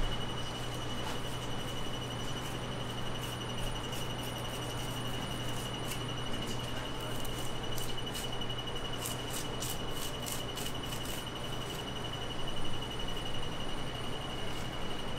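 Fish-market background noise: a steady high-pitched whine over a low hum, with a quick run of light clicks about nine to eleven seconds in.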